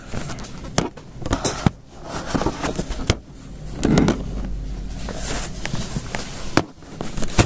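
Handling noise from a tablet being moved and propped up against something: scattered knocks and clicks with rustling between, picked up close on the tablet's own microphone.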